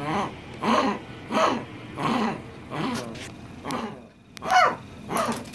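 Small dog making a series of short, pitched growling grumbles, about one every 0.7 seconds. About four and a half seconds in comes a louder, quickly rising cry.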